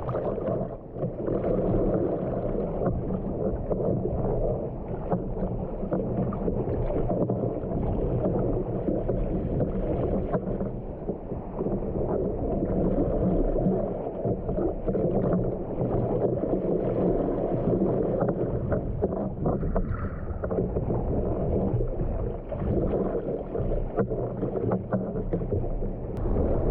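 Steady rush of gale-force wind and waves around a sea kayak out surfing in rough water.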